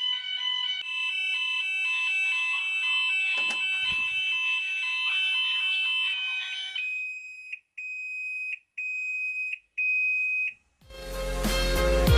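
Gent fire alarm sounders on a weekly test, sounding a steady high tone of several pitches at once, with a single knock about three and a half seconds in. About seven seconds in the tone changes to a pulse of about one beep a second, four beeps, then stops. Loud guitar music starts near the end.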